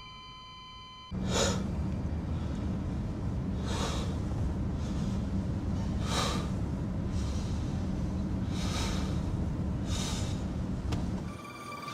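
Sound effect of breath-like noisy gusts, five of them about every two seconds, over a steady low hum that starts about a second in.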